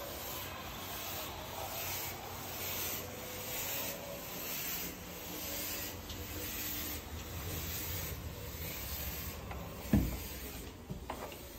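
Rubbing, scraping handling noise of a phone's microphone carried while walking, with faint stripes about once a second. A single thump comes about ten seconds in.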